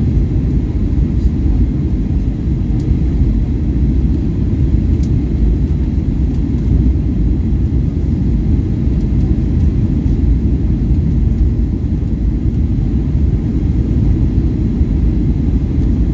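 Boeing 737-800 cabin noise on final approach: a steady low rumble of engines and airflow, heard from a seat over the wing.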